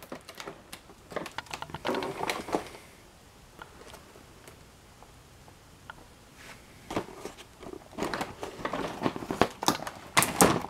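Handling noise from a cardboard toy box with a plastic window being turned over in the hands: scattered rustling, crinkling and light knocks, dying down for a few seconds in the middle and picking up again toward the end.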